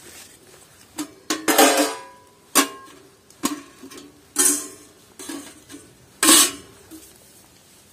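Metal cookware or utensils being handled: a string of about eight irregular clanks, each with a short metallic ring, the loudest about a second and a half in and again near the end.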